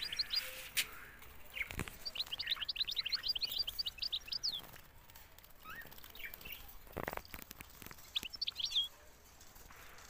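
Caged canaries chirping in quick runs of short, high notes, one run about two seconds in and a shorter one near the end, with a few sharp knocks in between.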